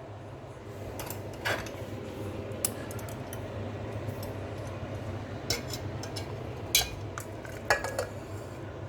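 Metal kitchenware clinking: about six sharp, separate knocks of utensils and steel pots being handled, over a steady low hum.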